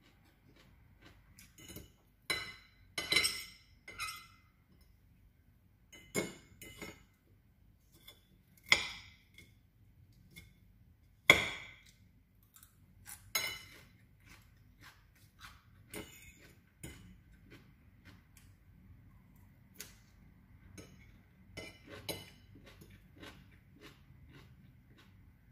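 Metal fork clinking and scraping against a ceramic bowl while eating salad: a handful of sharp, ringing clinks, the loudest about 11 s in, among many softer clicks from the eating.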